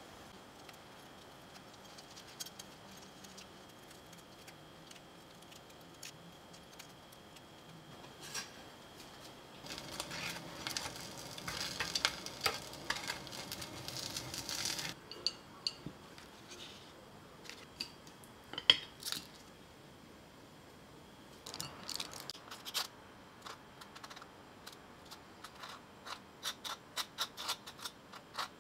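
Rye bread and an egg frying in butter in a pan: a crackling sizzle for about five seconds that stops abruptly. Then scattered clinks of kitchen utensils, and near the end a quick run of scrapes as a table knife spreads a white spread on the toasted bread.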